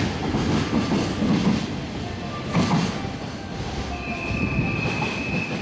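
The wagons of a container freight train running through the station: a low, pulsing wheel rumble with a couple of sharp knocks, easing off as the last wagons pass. A steady high-pitched squeal starts about four seconds in.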